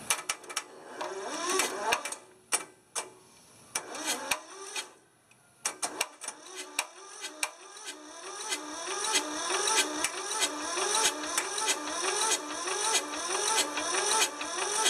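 Rhythmic metal-on-metal squeaking with clicks from hand work on a rusty, long-seized two-cylinder tractor diesel. The squeaks and clicks are scattered at first, then settle from about six seconds in into a steady rhythm of about two squeaks a second.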